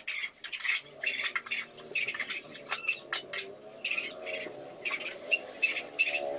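Crablets deep-frying in hot oil in a wok, the oil crackling and popping in quick irregular bursts.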